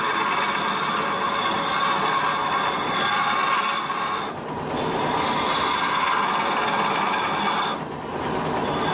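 Wood lathe running while a long-handled turning tool cuts a spinning wooden spindle: a steady scraping hiss over the machine's steady whine. The cutting eases briefly twice, about halfway through and near the end, as the tool comes off the wood.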